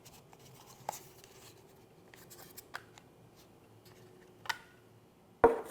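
Small plastic mic units being handled and taken out of a charging case: faint rubbing with a few sharp clicks spaced over several seconds, and a louder clack near the end.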